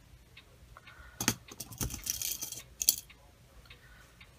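Rustling and light clicks of hands handling a crocheted purse and its fabric lining: a sharp click about a second in, a stretch of rustling, and another click near the three-second mark.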